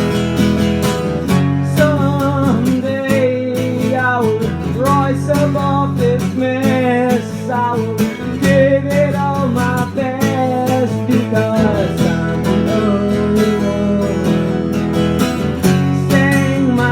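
Acoustic guitar strummed under a solo singer's voice, the melody wavering above steady chords, with short gaps between sung lines.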